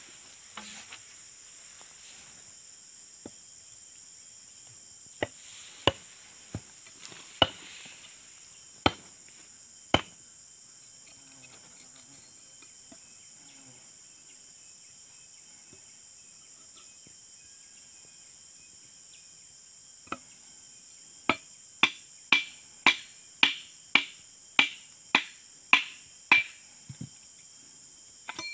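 Sharp knocks with a metallic ring as the steel socket of a palm-harvesting chisel (dodos) with a broken wooden handle is struck against a wooden beam: a few scattered blows, then a quick run of about ten at roughly two a second near the end. A steady high insect drone of cicadas or crickets goes on underneath.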